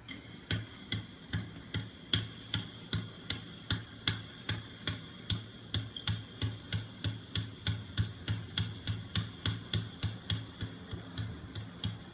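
A basketball being dribbled on a hardwood court in a steady, even rhythm of nearly three bounces a second, each bounce a short thud. The bouncing starts about half a second in.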